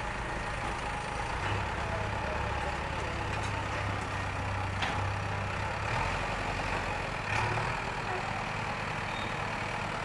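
JCB 3DX backhoe loader's diesel engine running steadily, with a few short knocks.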